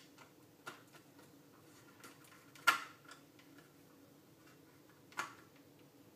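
About four short clicks and knocks of a circuit board and plastic antenna-analyzer case being handled and pressed together, the loudest about two and a half seconds in.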